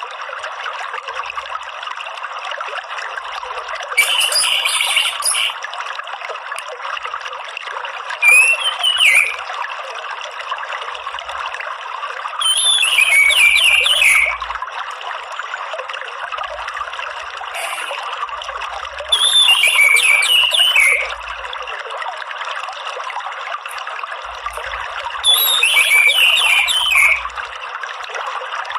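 Orange-headed thrush singing short, rapid twittering phrases, five of them spaced a few seconds apart, over the steady trickle of running water.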